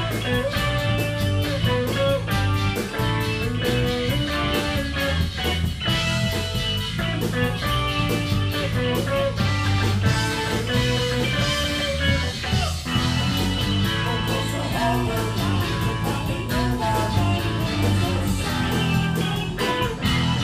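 Live rock band playing an instrumental passage: drums on a Ludwig kit, keyboards and guitar, played together at a steady, full level.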